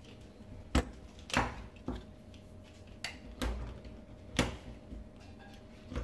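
Pliers knocking against the plastic frame of a vacuum-cleaner HEPA filter, tapping it to break the old filter element loose. There are several sharp knocks at irregular gaps of about half a second to a second.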